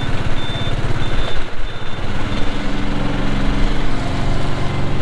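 Small engine of an auto-rickshaw running with a rapid pulsing beat. A string of short high beeps fades out over the first two seconds, and a steadier engine note comes in after that.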